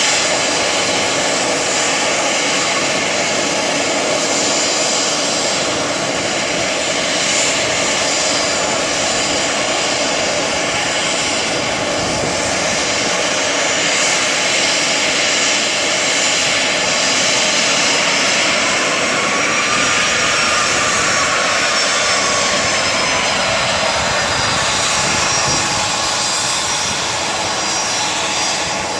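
Bombardier CRJ-200 regional jet's twin General Electric CF34 turbofan engines running, a steady jet rush with high whining tones; about twenty seconds in, one tone rises and falls gently.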